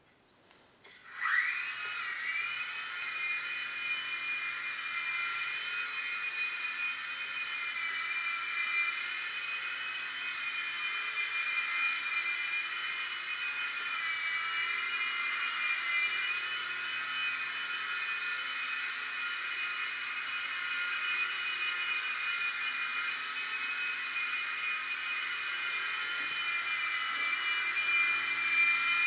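Blade mCX2 coaxial micro RC helicopter's electric motors and twin rotors spooling up with a quick rising whine about a second in. It then runs as a steady high-pitched whine while it hovers and flies, with its pitch dipping slightly now and then.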